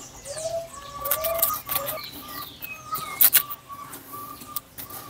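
Birds calling: a few short, low arching notes in the first two seconds and some higher falling notes. Over them come scattered clicks and scrapes of a knife clearing bokashi out of the rim groove of a plastic bucket, the sharpest clicks about three seconds in.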